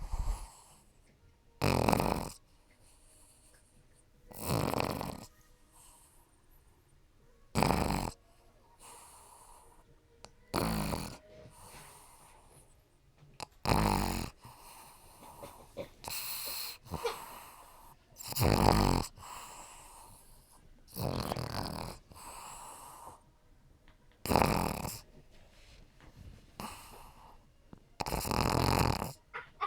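Pug puppy snoring: a loud snore about every three seconds, with fainter breaths in between. This is the noisy sleep breathing typical of a flat-faced breed.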